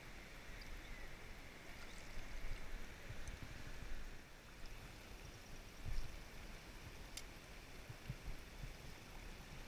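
Shallow, rocky stream flowing: a steady rush of water, with a few low thumps, the loudest about six seconds in, and one sharp click a second later.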